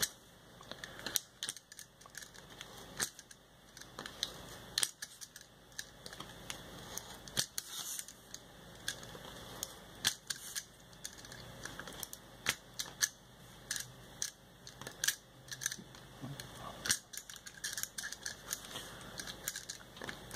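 Utility knife blade cutting through two taped-together layers of paper: a run of short, irregular ticks and scratches as the blade pierces and draws along the outlines.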